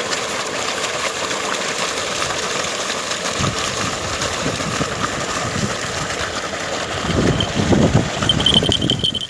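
Water gushing steadily from a pump's outlet pipe into a pond, over the steady running of the pump's engine, with louder splashing in the last two seconds.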